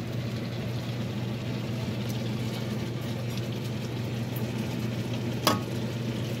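Beef bulgogi with baby octopus and bean sprouts sizzling in a frying pan as it is stirred and lifted out with utensils, over a steady low hum. About five and a half seconds in, a utensil clinks sharply against the dishware.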